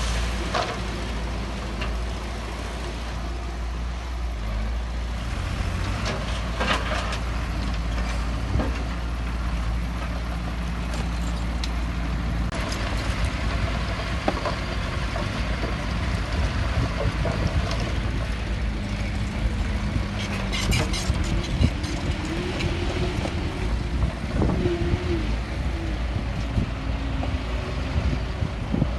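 Heavy diesel earthmoving machinery running steadily, with scattered clanks and short hisses over the engine.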